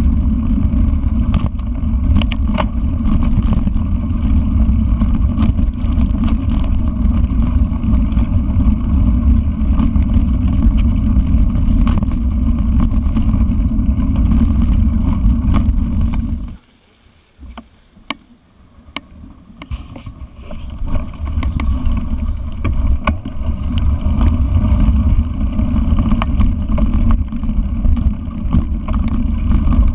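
Wind buffeting an action camera's microphone and the rumble of a mountain bike rolling over a dirt trail, with frequent sharp clicks and knocks from bumps. A little past halfway the rumble drops away suddenly for about three seconds, then builds back.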